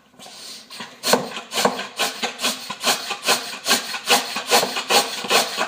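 Hand pump of a vacuum oil extractor jug worked in quick, even strokes, about two and a half a second, each stroke a rasping rush of air. It is pumping the jug up so that it can suck the old engine oil out through the dipstick tube.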